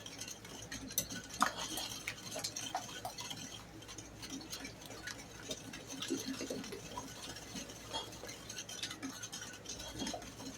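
Danish dough whisk beating eggs into oil and sugar in a mixing bowl by hand, its wire loops clicking and scraping against the bowl in quick, irregular strokes.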